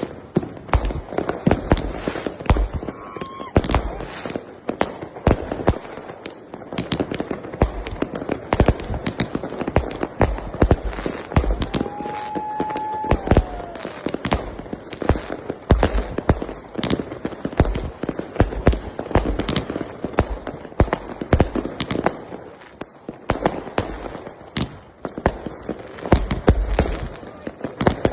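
Fireworks and firecrackers going off in a dense, irregular string of bangs and crackles, near and far, with no let-up. A brief whistle rises out of the bangs about twelve seconds in.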